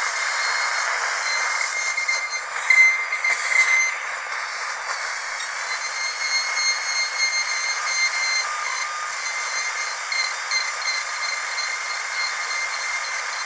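Dental drill running with a steady high-pitched whine over a hiss, briefly louder and changing in tone about three seconds in.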